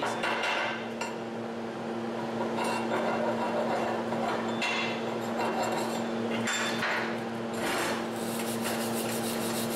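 Steel chipping hammer knocking and scraping slag off a fresh 7018 stick-weld bead on a 1/4-inch steel plate outside corner, in a run of irregular metallic clinks, then a wire brush scrubbing the bead. A steady electrical hum runs underneath.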